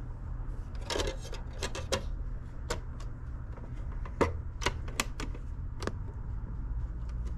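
Plastic clicks and clacks of a portable CD boombox being loaded: a disc pressed onto the spindle, a sharp snap as the lid shuts about four seconds in, then a few more clicks from the buttons on top. A steady low hum runs underneath.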